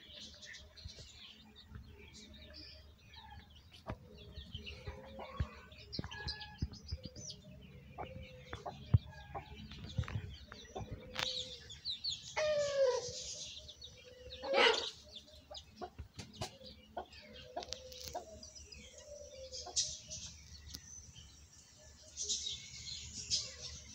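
Domestic chickens clucking on and off, short calls one after another, with a louder drawn-out squawk a little past the middle, and small birds chirping faintly.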